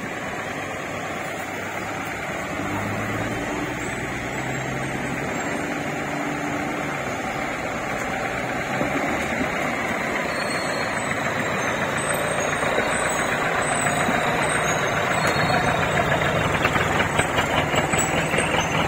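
Off-road 4x4's engine working as it climbs a muddy slope, growing steadily louder as the vehicle nears and passes close, with a fast throbbing near the end.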